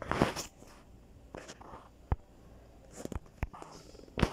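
Scattered sharp clicks, about seven, with soft rustling between them: fingers tapping and handling a smartphone while it is being used.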